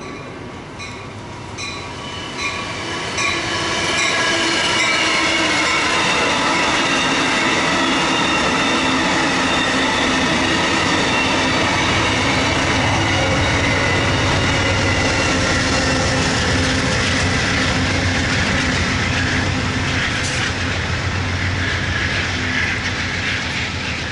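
An Amtrak Surfliner passenger train of Horizon cars passing close by, growing louder over the first few seconds and then holding a steady rumble and clatter of wheels on rail with high squealing tones.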